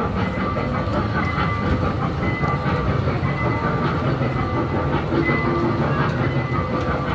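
Small ride-on mall train running with passengers aboard: a steady low rumble from its motor and running gear, with brief high-pitched tones coming and going.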